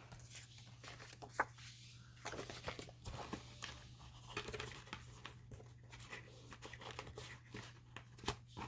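Paper and card pieces being handled and shuffled through: soft rustling and crinkling with scattered light taps and clicks, over a faint steady low hum.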